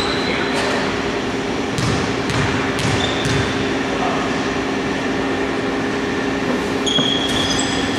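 A basketball bounces a few times on a hardwood court as a free throw is prepared, over a steady hum in the hall. Sneakers squeak a few times near the end.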